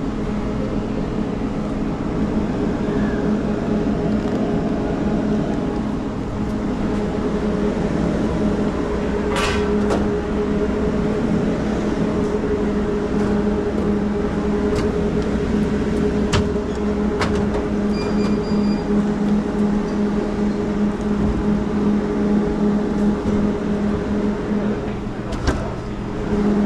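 Steady hum of running commercial refrigeration equipment, a low drone with a higher steady tone over it, with scattered light clicks and a brief scrape about nine seconds in.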